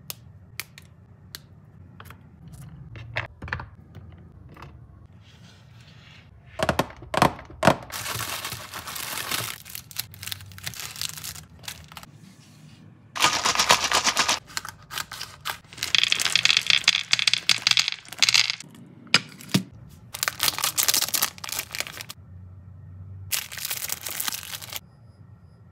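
Sharp snaps and clicks of milk-chocolate bar pieces being broken and set down on a wooden tray. These are followed by several stretches of crisp crinkling, one to two seconds each, as foil-wrapped Milka snack bars are handled and unwrapped.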